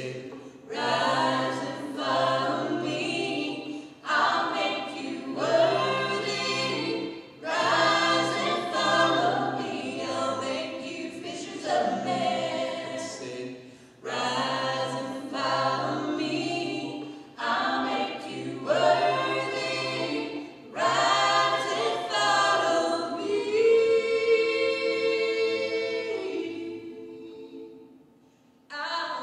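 Mixed male and female voices singing a cappella in close harmony, phrase by phrase with short breaks between lines. A long held chord rings out about two-thirds of the way through and fades away before the next line starts.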